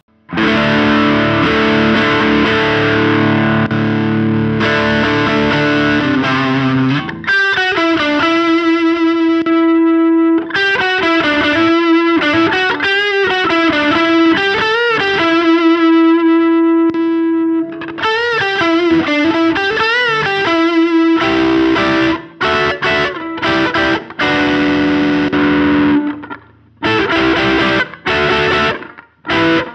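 Electric guitar played through a NUX Ace of Tone dual overdrive pedal with both sides on, the Morning Star boost feeding the Tube Man overdrive, giving an open, less compressed distorted tone. Held distorted chords come first, then a single-note lead line with bends and vibrato, then chords broken by short stops near the end.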